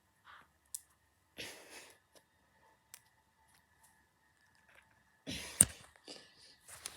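Fidget toys being handled: scattered sharp clicks and short rustling, scraping handling noises. A louder stretch of handling comes near the end, with one sharp click, the loudest sound, in its midst.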